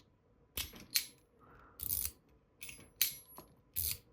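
Small machined metal fidget toy clicking and clinking as its hinged part is bounced and folded down: a run of light metallic clicks at uneven intervals, some with a brief high ring.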